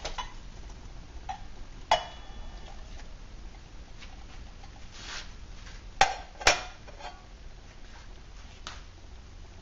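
Clinks and knocks of an aluminum cook pot being handled: a clink with a short metallic ring about two seconds in, two louder knocks about six seconds in, and a few lighter taps in between.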